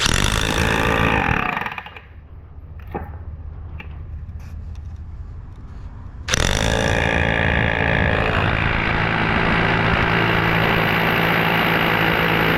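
Topshak corded rotary hammer drill in hammer mode, boring through wooden boards into the concrete beneath: a short burst of drilling at the start, a pause with a few clicks, then steady drilling from about halfway on.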